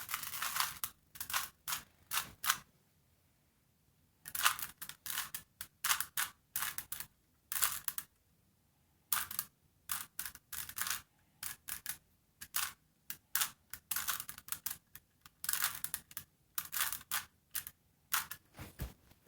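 A 3x3 Rubik's cube being turned by hand: irregular runs of quick plastic clicks and clacks as the layers are twisted, broken by a few pauses of a second or more.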